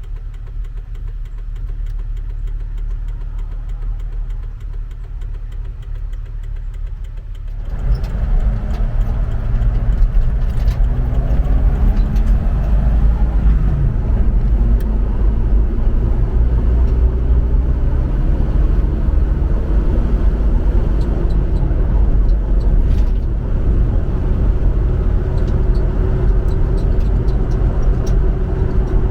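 Jeep Wrangler TJ driving, with steady engine and road rumble. About eight seconds in the noise grows suddenly louder and the engine rises in pitch as it accelerates, then it runs on loud and steady.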